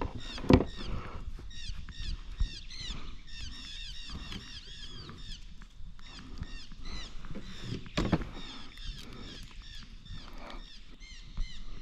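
Many birds chirping together, a dense run of short high calls. A sharp knock sounds about half a second in and another about eight seconds in.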